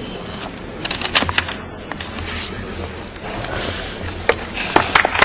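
Hall murmur with a few sharp claps about a second in. Near the end, clapping starts up and thickens into applause.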